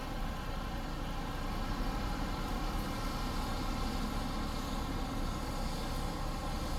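Tour bus engine running steadily with an even, unchanging hum.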